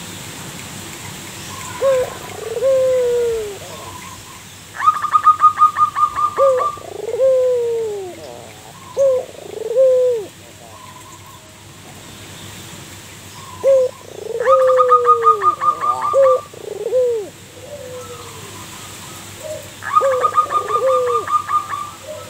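Zebra dove (perkutut) cooing. It sings several phrases, each a quick run of higher clipped notes followed by deep coos that fall in pitch. Full phrases begin about 5, 14 and 20 seconds in, with shorter coos between them.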